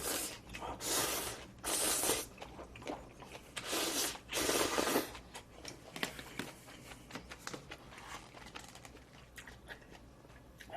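Instant jjamppong noodles wrapped in chives being slurped and eaten close to the microphone: about five loud slurps in the first five seconds, then quieter chewing with small wet clicks.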